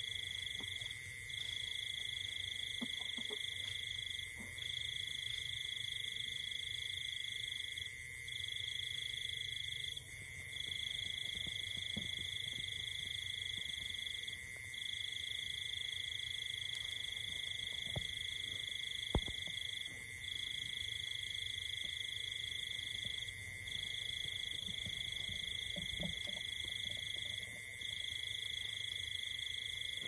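Steady, high-pitched insect drone in two pitches, the higher one breaking off briefly every few seconds.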